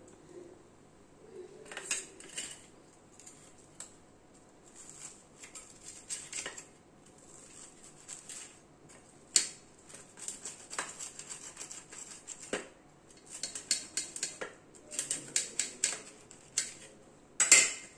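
Kitchen scissors cutting a toasted sandwich on a stainless steel plate, with snips and metal clinks and scrapes against the plate in irregular bursts. There is a run of quick strokes in the last few seconds and a loud clatter near the end.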